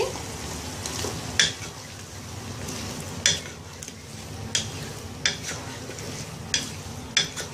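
A wooden spoon stirs cubed potatoes and tomatoes in a metal pot over a steady sizzle from the spiced oil. About seven irregular knocks of the spoon against the pot come through the stirring.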